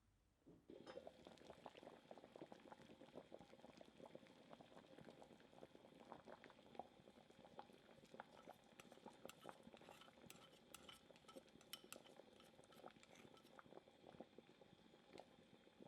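Faint bubbling of a pot of sugarcane and wintersweet sweet soup boiling: a dense, steady patter of small pops that starts about a second in.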